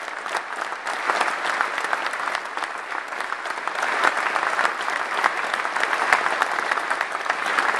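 Audience applauding steadily: many hands clapping at once, with no break.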